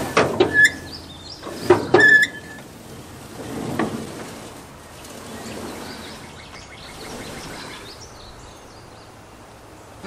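Wire-tie square baler running, its plunger working hay through the freshly cleared bale chamber: a few heavy clanking strokes with a brief squeal in the first four seconds, then a quieter steady run.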